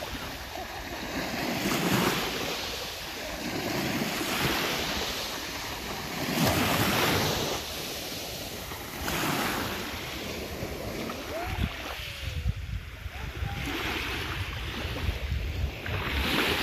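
Small sea waves washing in and out, swelling every couple of seconds, with wind gusting on the microphone in the second half.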